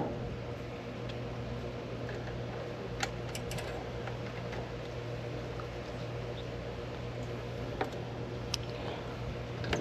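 A steady low hum with a few faint clicks, from meter test leads being handled on an HVAC condenser's run capacitor terminals during a capacitance test.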